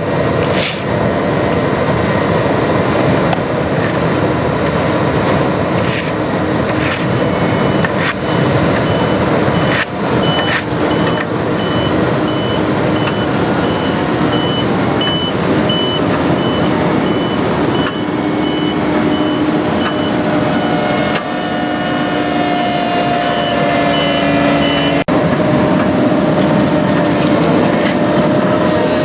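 Heavy road-paving machinery running steadily, with a vehicle's backup alarm beeping at an even pace from about a quarter of the way in until near the end, and a few sharp knocks.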